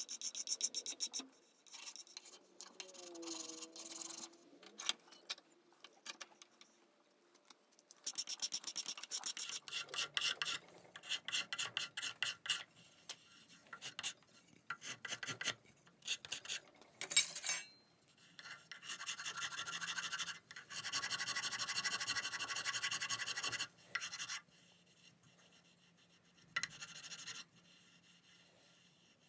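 Hand-shaping a hickory hammer handle held in a vise with a file and a steel card scraper. Groups of quick scratchy strokes on the wood, a longer run of steady scraping about two-thirds of the way through, and one sharp tap a little past halfway.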